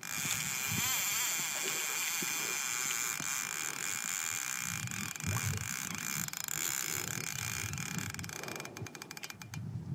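Steady hiss of water streaming along a kayak hull as a hooked marlin tows it, with a quick run of sharp clicks near the end.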